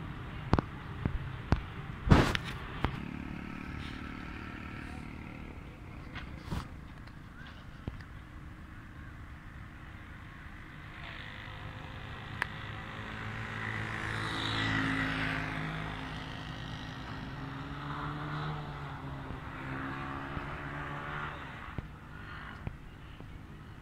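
Street ambience with a motor vehicle passing, its engine swelling to a peak about midway and then fading. A few sharp knocks and clicks in the first few seconds.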